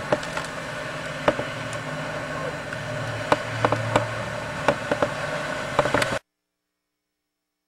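Steady mechanical drone holding several tones over a hiss, with scattered sharp knocks, cutting off suddenly about six seconds in.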